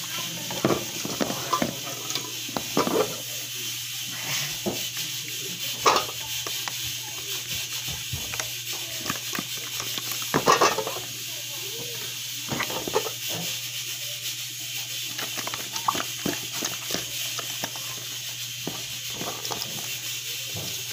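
Hands washing small whole fish in vinegar in a plastic basin: irregular wet handling sounds and knocks of fish and hands against the basin, over a steady hiss.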